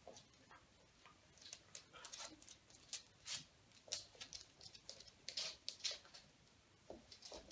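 Faint, irregular patter of paws and claws clicking and scuffing on a wooden floor as a chow chow puppy and a cat wrestle.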